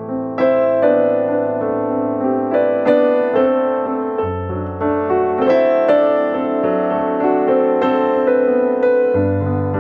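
Background piano music, gentle and melodic, with notes struck every half second or so over a sustained bass.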